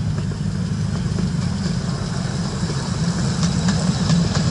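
Miniature railway diesel locomotive's engine running steadily, with a few faint clicks near the end.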